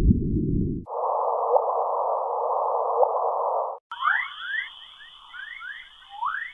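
Space recordings by NASA, converted to sound, played back to back. A low rushing hiss ends under a second in. Then comes a higher hiss with a steady tone beneath it. From about four seconds there is a steady high tone with a flurry of quick rising chirps.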